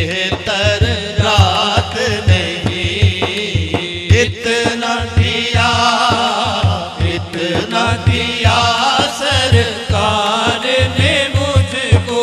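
Naat sung by a man's voice in long, wavering melismatic lines into a microphone, over a quick, steady beat on a large frame drum (daf).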